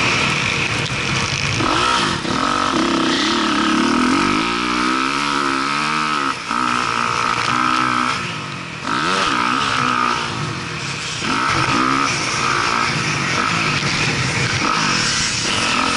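Motocross dirt bike engine heard on board, revving hard up and down as the rider shifts and works the throttle around the track. The throttle is chopped briefly a few times, about two, six and eight seconds in, before the engine winds back up.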